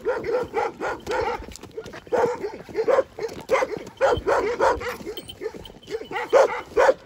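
Dogs barking over and over, short barks coming several a second in a continuous run, loudest near the end, as loose dogs confront a large leashed dog.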